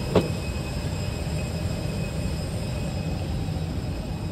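Steady low rumble of an airliner cabin's air conditioning during boarding, with a single sharp click just after the start.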